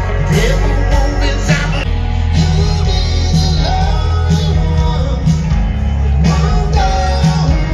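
Rock music played by a band: a singer over guitar and a heavy, steady bass line.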